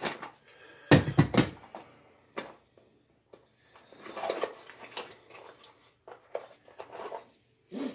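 A small cardboard box being opened and its packaging handled by hand: a quick cluster of knocks and clacks about a second in, then scattered rustling and tapping.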